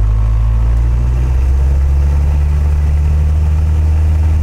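Cessna 172's four-cylinder Lycoming piston engine running steadily at full takeoff power during the takeoff roll, heard from inside the cockpit.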